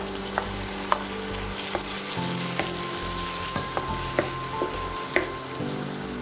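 Onions and freshly added chopped tomatoes sizzling in oil in a non-stick frying pan, stirred with a spatula that clicks against the pan several times.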